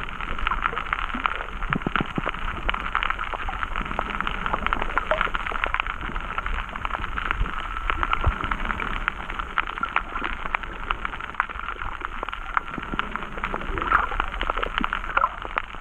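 Underwater ambience over a coral reef: a dense, continuous crackle of tiny clicks over a muffled hiss, dulled by the camera's waterproof housing.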